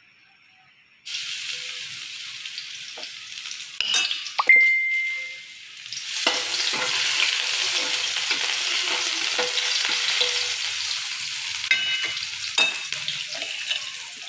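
Oil in a wok sizzling, then chopped garlic frying in it, the sizzle growing louder about six seconds in. A spatula clinks against the wok a few times, with a short ringing clang near the middle.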